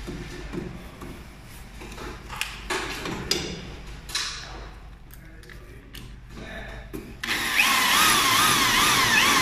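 Cordless drill boring into a roller door's side column, starting about seven seconds in: a loud motor whine that wavers in pitch as the bit cuts. Before it, scattered knocks and clatter as the drill is picked up and positioned.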